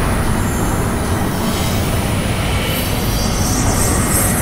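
Cartoon sound effect of glowing elemental energy beams streaking through the sky: a steady, loud rush with a deep rumble underneath, and a high shimmering hiss joining in about three seconds in.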